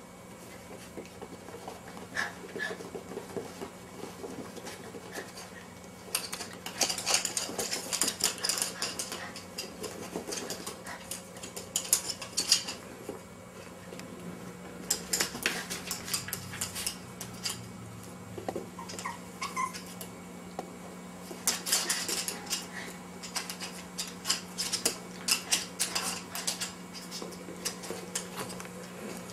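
Toy poodle puppies' claws clicking and scrabbling on a hard wooden floor as they play, in bursts of quick clatter, with a small ball knocking about, over a steady low hum.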